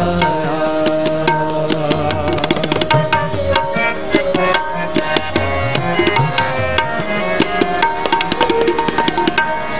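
Instrumental interlude of Sikh kirtan: tabla playing a rapid, steady rhythm under held harmonium notes.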